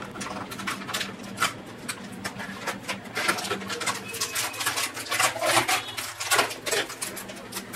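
Thin protective plastic film crackling and crinkling as it is peeled off a router's glossy top, in many small irregular crackles.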